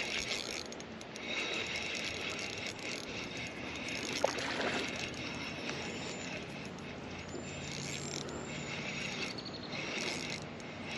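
Fishing reel being cranked to reel in a hooked bass, its gears whirring and clicking in steady spells, with one sharp click about four seconds in.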